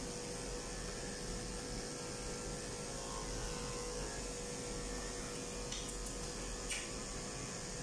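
Steady machine hum with a faint steady tone in it, unchanging throughout; a few faint short clicks come about five to seven seconds in.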